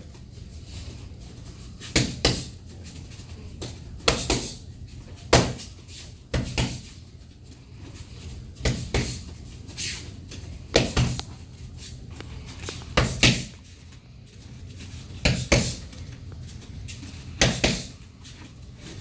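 Jab-cross punches smacking into padded focus mitts. Each combination is a pair of sharp slaps a fraction of a second apart, and it repeats about every two seconds.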